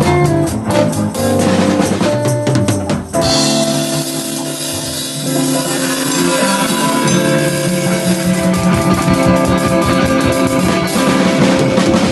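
A drum kit playing with guitar in a free-form jam. About three seconds in, the steady hits give way to a cymbal wash over held guitar notes. From about eight seconds in, quick drum strokes build up again.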